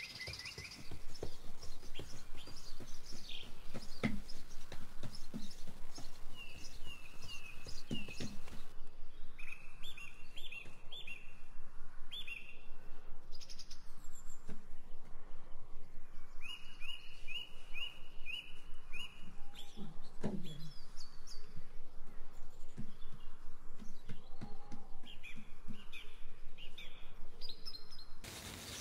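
Small birds chirping, in short runs of quick repeated high notes that come again and again.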